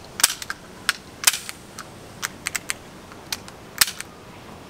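About a dozen sharp, uneven clicks from a CO2 gas-blowback airsoft Desert Eagle pistol being worked by hand. Its BBs are used up and its CO2 is empty.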